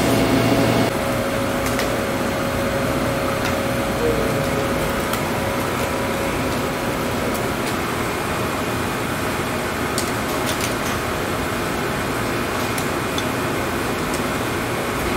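Steady hiss and hum of cleanroom air handling. A deeper machine hum stops abruptly about a second in, and a few faint clicks come through later.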